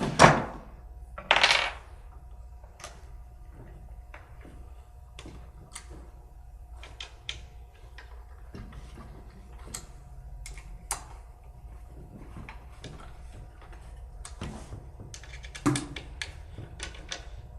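Scattered small metal clicks and taps as bench bolts are handled and turned with an Allen wrench on the bench's wooden legs, with a louder scrape about a second and a half in and another near the end.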